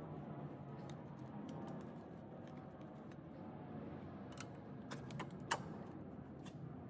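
Scattered light clicks and taps over a low steady hum, the sharpest click about five and a half seconds in.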